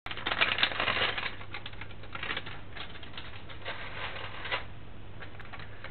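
A small plastic seasoning sachet crinkling as it is handled, most densely in the first second and a half, then scattered light clicks and rustles. A low steady hum runs underneath.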